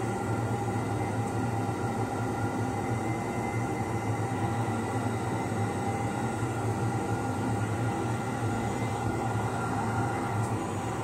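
Steady machine hum: a constant low drone with several fixed higher tones, unchanging throughout, as from a motor running.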